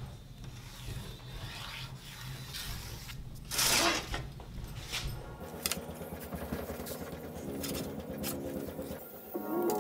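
Rubbing and scraping strokes on wood, with one louder swish about three and a half seconds in.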